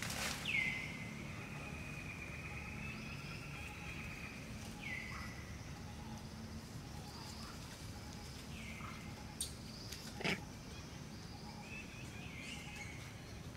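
An animal's high-pitched call, heard four times a few seconds apart: each drops quickly in pitch and then holds a steady note, the first held about two seconds. A single sharp click sounds about ten seconds in.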